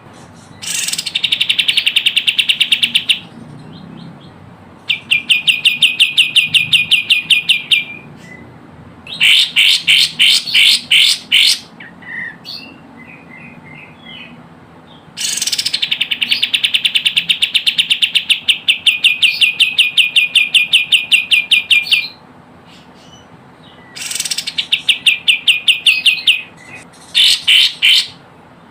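Kapas tembak bird song played as a lure call: loud bouts of fast, rapidly repeated high notes, about six bouts lasting a few seconds each, separated by short pauses, with a few soft chirps between them.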